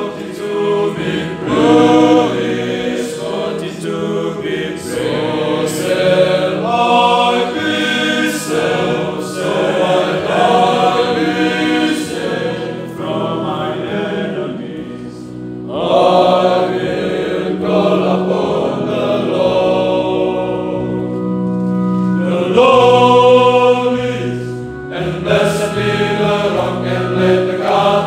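Male choir of friars singing a sacred song together, held notes moving through a melody, with short breaks between phrases about 15 and 22 seconds in.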